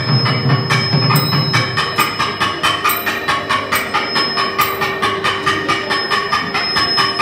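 Thavil barrel drum played solo in a fast, even stream of strokes from the stick and the thimble-capped fingers, over a steady held tone.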